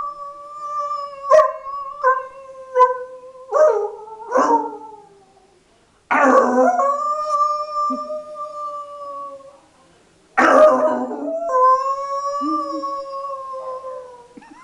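A man imitating a wolf howling with his voice: three long, steady howls, the first breaking into a few short yelping notes.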